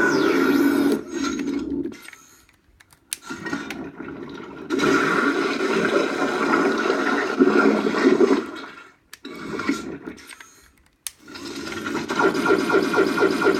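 Ghostbusters proton pack prop's electronic sound kit playing its effects through the pack's speaker: rushing, hiss-like stretches broken by short pauses and sharp clicks, then a hum that rises with an even pulsing beat near the end.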